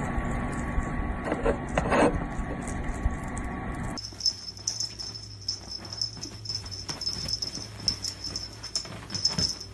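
A small pet animal's short, quick, breathy noises and snuffles. The sound changes character at a cut about four seconds in, after which many short irregular ticks and clucks follow.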